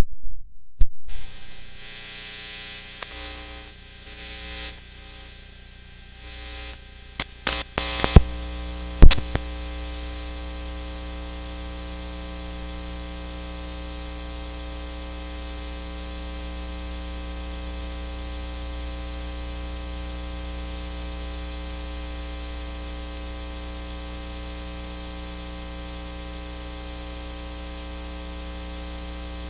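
Crackles and loud pops from a microphone cable's connectors being unplugged and plugged back in during the first nine seconds or so, then a steady electrical buzz with many overtones: mains hum picked up on the microphone line.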